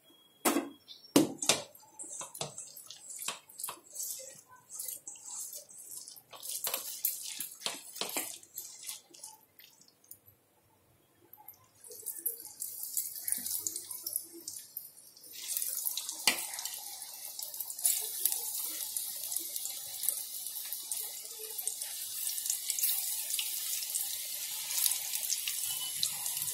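Onion pakora batter deep-frying in hot oil in an aluminium kadhai: a steady sizzle that starts about twelve seconds in and gets louder from about sixteen seconds as more batter goes in. Before it, a metal skimmer clicks and scrapes against the pan several times.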